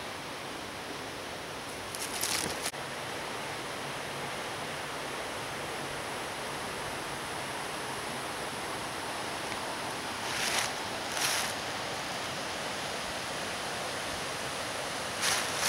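Steady rushing of running water, with a few brief rustles scattered through it.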